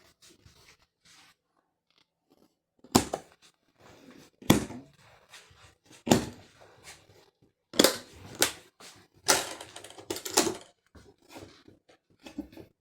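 Hard objects being handled, knocking and clacking together: about seven sharp knocks at irregular intervals, with softer handling noise between them.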